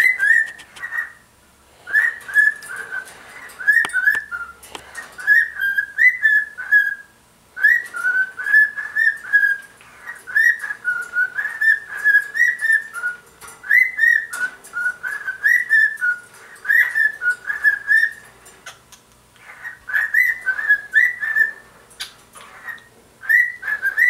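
Cockatiel whistling its song: quick runs of short, warbling notes that rise and fall, broken by brief pauses every few seconds.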